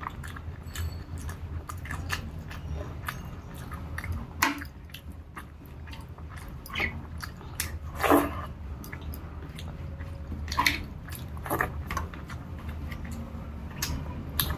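A person chewing a rice-and-dal meal close to the microphone, with irregular short mouth clicks and smacks, a few louder than the rest, over a steady low hum.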